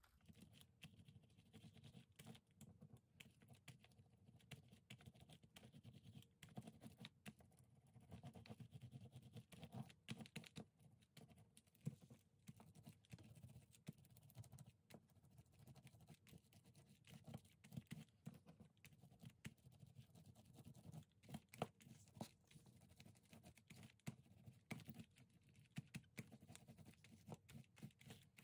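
Small rubber hand roller rolling wet acrylic paint across paper, a faint, dense, irregular clicking.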